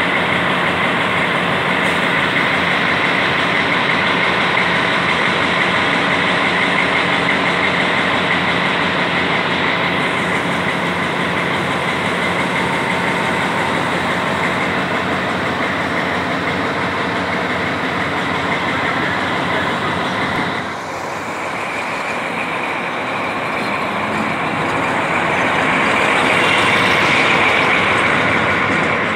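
Diesel engine of an SU45 locomotive, a 12-cylinder V diesel, running with a steady heavy note. About twenty seconds in its tone briefly drops and changes, then it grows louder as the locomotive moves off past and eases away near the end.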